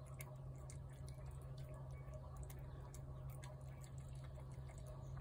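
A cat eating wet food from a plate: faint, irregular wet clicks and smacks of chewing and licking, over a steady low hum.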